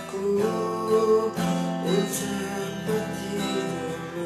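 Acoustic guitar strumming chords, with a new chord struck about every second and left to ring.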